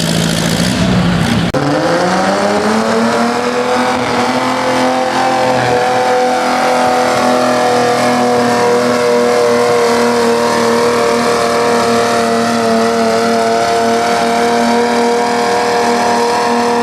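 Antique tractor's engine at full throttle pulling a weight-transfer sled. Its pitch climbs over the first few seconds and then holds steady at high revs under load.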